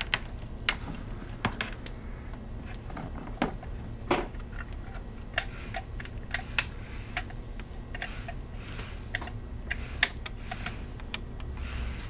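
Irregular small clicks and ticks of fingers handling Cat6 wire conductors and fitting them into a small plastic loading bar, over a low steady hum.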